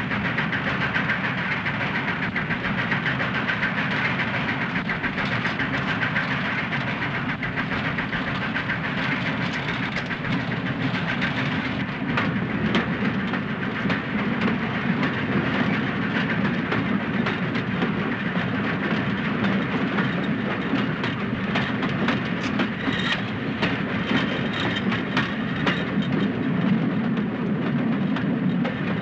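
Moving train: a steady running rumble with the wheels clattering over the rails. Sharp clicks and clanks come thick near the middle and again near the end.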